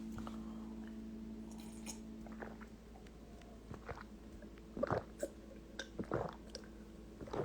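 A low steady hum that fades over the first few seconds, then a few short, soft mouth sounds about five to six and a half seconds in.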